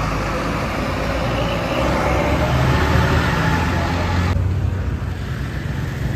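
A bus passing with engine and road noise: a steady low engine rumble under a broad hiss. The hiss drops away abruptly about four seconds in, leaving the engine's low drone.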